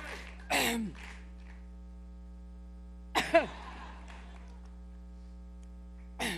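A woman coughing in a prolonged coughing fit: a short harsh cough about half a second in, a double cough about three seconds in, and another near the end. A steady electrical mains hum runs underneath on the recording.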